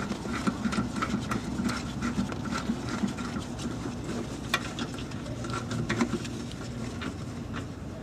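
Light, irregular metallic ticking and tapping of a 17 mm socket driving a hub-assembly bolt, with a couple of sharper clicks.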